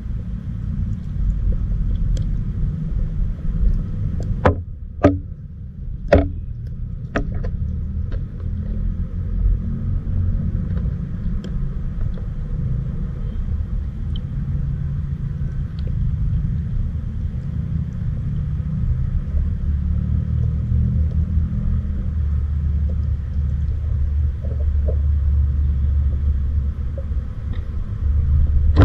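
Steady low underwater rumble of a river's flowing water heard through a submerged camera, with a few sharp clicks between about four and seven seconds in.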